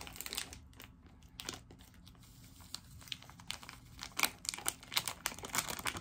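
A small plastic seasoning packet crinkling as it is torn open and then shaken out over a bowl of noodles. Short crackles come near the start, thin out in the middle, then come thick and fast over the last two seconds.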